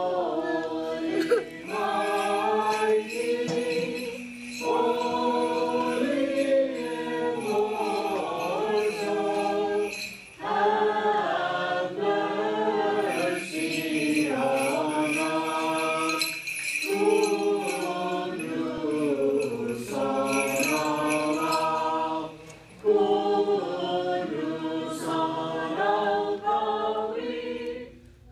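A choir singing a slow hymn in several voices, in long phrases with short pauses between them.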